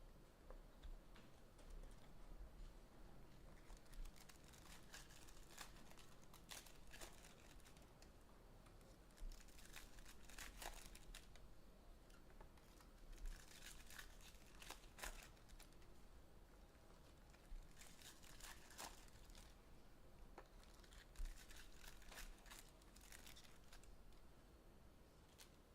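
Faint tearing and crinkling of trading-card pack wrappers and box packaging being opened, in about five short spells a few seconds apart.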